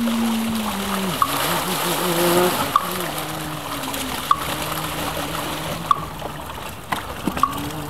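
Voices chanting in long held notes, kept in time by a short knock about every one and a half seconds, over splashing water as a bucket is tipped out into the river during a Buddhist release rite.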